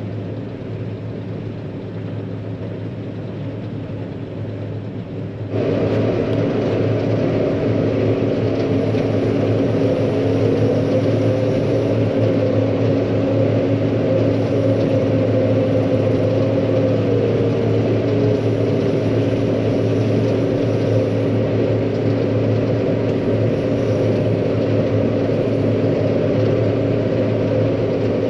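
John Deere 9500 combine running steadily while harvesting wheat, a constant machine hum with a steady whir. It gets abruptly louder and fuller about five seconds in, and one tone in the hum wavers up and down through the middle.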